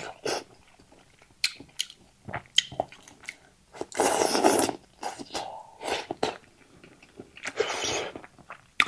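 Close-miked eating: a person slurping rice noodles, with two longer slurps, one about four seconds in and one near the end, and wet mouth clicks and chewing between them.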